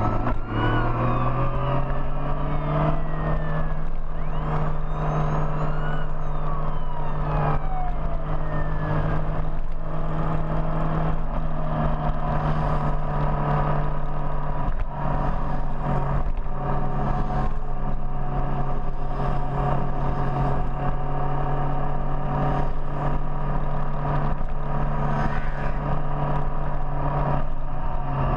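Big motorcycle engine running steadily at an even pitch. In the first ten seconds or so, other engines rise and fall in pitch over it.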